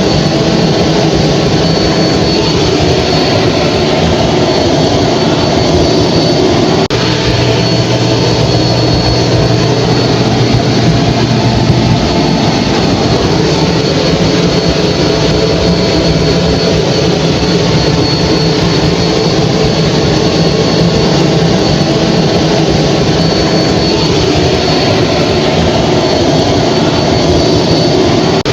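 Hair dryer running steadily: a loud, even rush of blown air over the motor's low hum, with a faint high whine.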